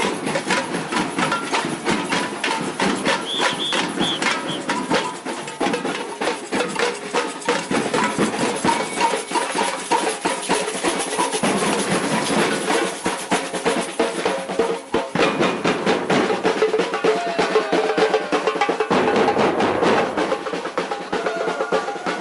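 Batucada samba percussion ensemble playing, with a dense, driving rhythm of snare and bass drum strokes.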